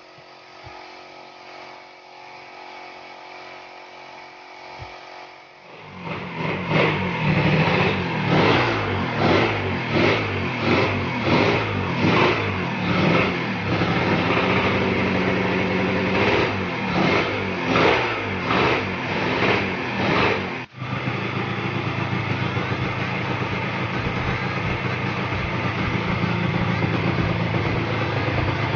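Drag-racing motorcycle engines. A quieter steady hum for the first six seconds, then loud engines blipped up and down about once a second for some fifteen seconds, then after a sudden break a steady, loud, high-revving engine.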